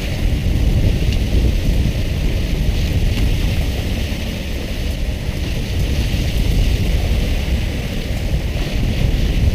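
Steady, gusty wind rumble on the microphone with a rain-like hiss of water splashing on the sea surface beside the boat.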